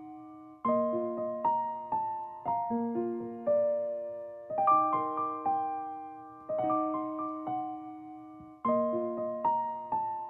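Background music: a gentle piano melody of single struck notes that fade away, the short phrase starting again about every four seconds.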